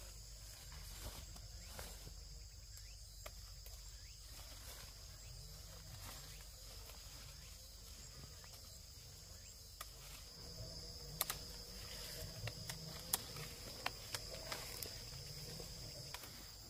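Insects, crickets or similar, droning steadily in the background as an even, high-pitched hum. From about ten seconds in, a scatter of sharp short clicks or snaps sounds over it.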